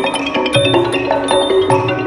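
Thai classical ensemble music: mallet percussion instruments playing a quick melody over a steady beat of small ringing cymbals struck about twice a second.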